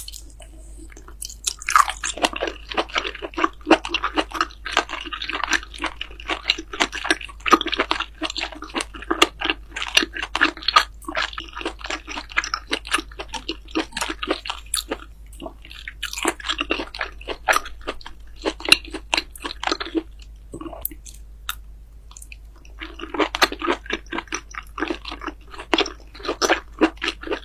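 Close-miked eating: a person chewing food with loud crunching, in long runs of many sharp crackles, with a lull of a few seconds near the end.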